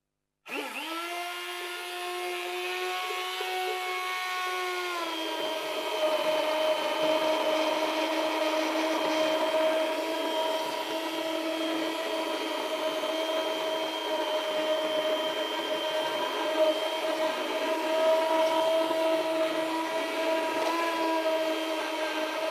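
Handheld stick blender motor whirring as it purées a pot of cooked onion, tomato, pepper and carrot curry base gravy. It starts up about half a second in with a steady whine, drops slightly in pitch and grows rougher about five seconds in, then runs on steadily.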